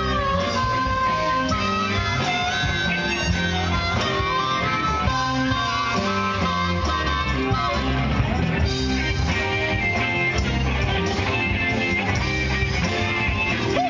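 Live band playing an instrumental stretch: guitar over bass and drums, with a steady beat and no singing.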